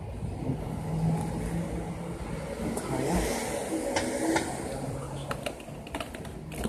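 A car running close by as a sedan drives past at low speed, over a steady low engine hum. A few sharp clicks come near the end.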